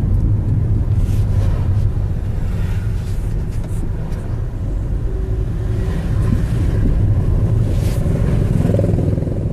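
Steady low rumble of a car's engine and road noise, heard inside the cabin while driving.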